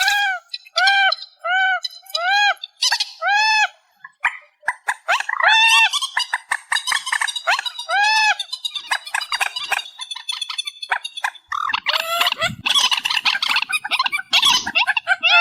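Repeated calls of a trích ré, a rail-family marsh bird, from an amplified lure recording: short arched nasal notes that rise and fall, at first spaced about two a second. They then crowd into overlapping calls that grow denser and busier near the end.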